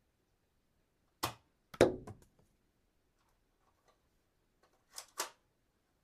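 Dart gun's mechanism clicking and snapping: a sharp click about a second in, then a louder snap with a short rattle, a couple of faint ticks, and a quick double click near the end.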